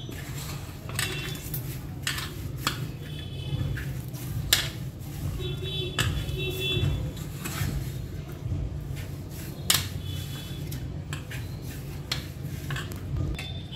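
Hands kneading a crumbly chudwa-and-jaggery dough in a metal pan: repeated knocks and scrapes of hand and dough against the pan, over a steady low hum.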